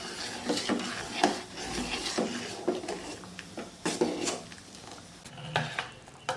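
Spoon stirring in a pot of rice payasa, with irregular knocks and scrapes against the pan.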